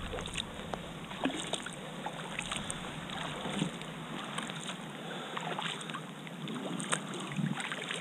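Kayak paddle strokes on calm sea water: the blade dipping in, with many small splashes and drips of water running off it.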